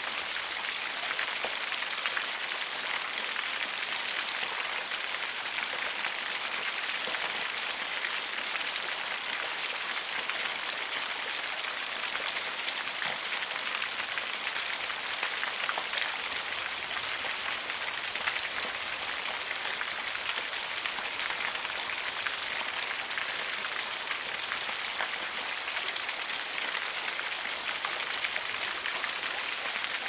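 Small waterfall: a thin stream of water falling over rock ledges and splashing onto the rocks below. A steady, hissing rush of water with many small close-up splashes pattering through it.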